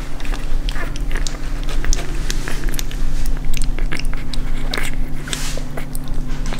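An English bulldog puppy chewing and smacking at a feeding syringe of milk-thinned meat pâté, a rapid irregular run of small wet clicks; it is chewing the syringe instead of sucking from it. A steady low hum runs underneath.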